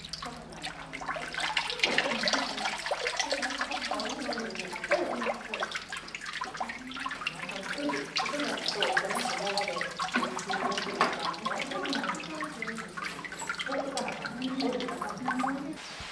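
Shrine spring water gurgling and splashing, a busy, uneven run of bubbling and spattering.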